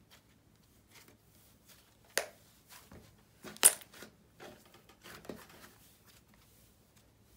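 Cloud slime being stretched and squished by hand, giving a scatter of sharp crackles and pops, the loudest a little past two seconds in and about three and a half seconds in.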